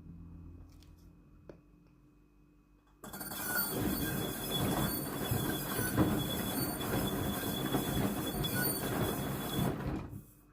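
Washing-machine drum turning at the start of a main wash, its drive belt making a horrible squealing, scraping noise. It starts about three seconds in after a faint hum and stops abruptly after about seven seconds.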